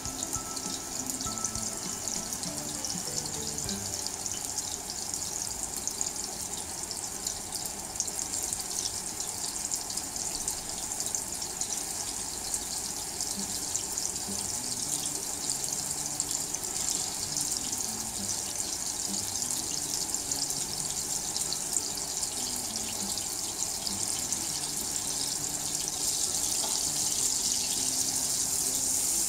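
Beef koftas (meatballs) frying in shallow oil in a nonstick frying pan on medium heat: a steady crackling sizzle that grows a little louder near the end. Soft background music plays underneath.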